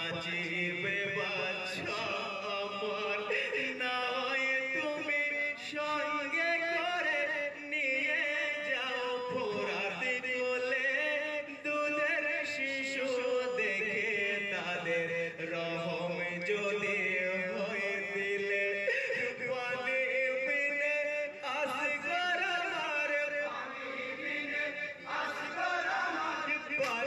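Male voices chanting a marsiya, a sung Bengali elegy for Muharram, in a continuous melodic chant.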